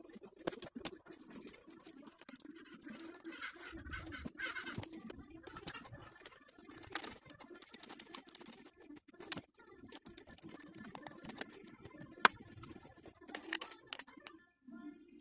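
Hands working in a car's engine bay: small clicks, taps and rustling as rags, hoses and small parts are pulled out and handled, with two sharper clicks about nine and twelve seconds in.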